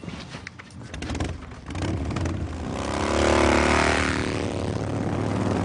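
Motorcycle engines revving up about two seconds in, building to a loud steady run as the bikes pull away.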